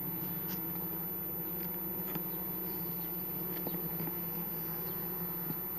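Honeybees buzzing steadily around an open hive, the even hum of a calm colony, with a few faint clicks.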